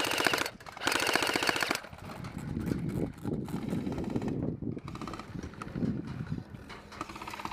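Airsoft electric guns firing full-auto: two loud rapid bursts of about a second each in the first two seconds, then fainter bursts near the end.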